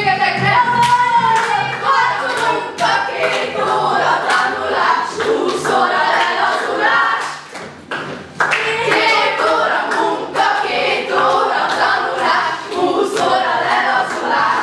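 A group of young voices singing together, with hand claps in a steady rhythm; the singing briefly drops away about seven seconds in, then comes back.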